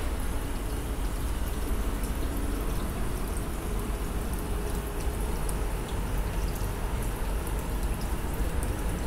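Aquarium air bubbles rising in streams and bubbling at the water surface, a steady watery patter with faint scattered pops. A constant low hum runs underneath.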